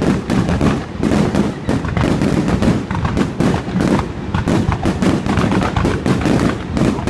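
Fireworks display: a rapid, continuous barrage of bangs and crackles over a low rumble of shell bursts.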